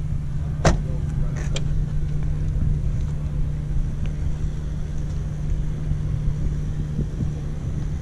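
A car door shutting with one sharp clack less than a second in, followed by a couple of lighter clicks, over a steady low hum.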